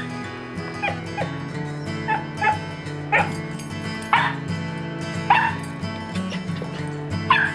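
Dogs at play giving short, high barks and yips, about eight in all, over steady background music.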